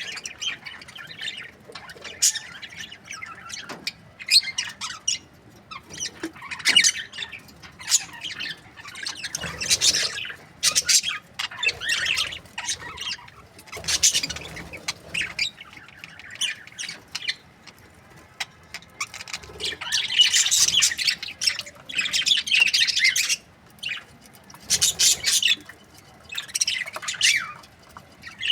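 Several budgerigars chirping and squawking in short, repeated bursts, with a denser run of chattering about two-thirds of the way through.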